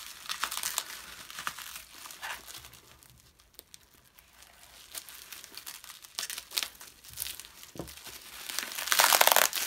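Bubble wrap crinkling and rustling as hands unwrap it, in uneven bouts with a quieter stretch in the middle and the loudest crinkling near the end.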